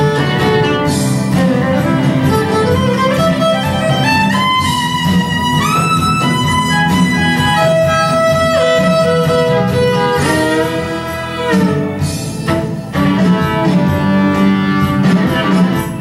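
Violin playing a fiddle melody, with a run of notes climbing in pitch about two to four seconds in and long held notes after it, over a steady low accompaniment.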